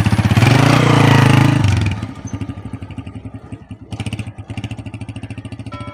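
Small motorcycle engine revving hard for about two seconds, then pulling away and running steadily quieter as the bike rides off, its rapid firing pulses still plain.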